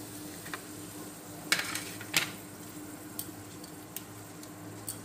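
Bay leaves frying in hot mustard oil in a wok: a faint steady sizzle with a few sharp pops and crackles as the oil spits, the loudest about a second and a half and two seconds in.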